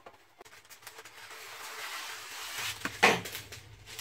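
Baking parchment pulled off its roll with a rising rustle, then torn off with a sharp snap about three seconds in.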